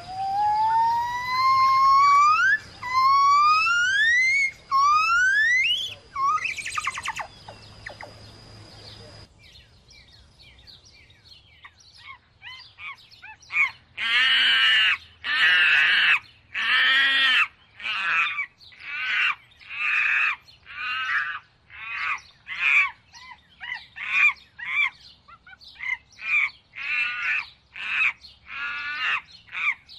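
Birds calling. First comes a series of clear whistled notes, each rising in pitch and getting shorter and quicker. After a pause of a few seconds comes a long run of repeated harsher calls, about one a second at first and faster near the end.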